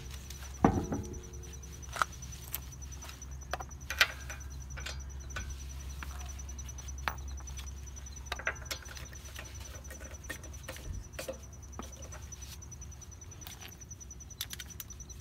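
Scattered light metallic clicks and knocks as an alloy wheel is hung on the hub and its wheel bolts are fitted by hand, the loudest knock about a second in, over a steady low hum.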